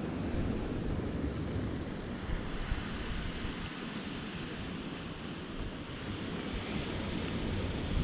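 Steady wind buffeting the microphone, with the wash of sea surf behind it.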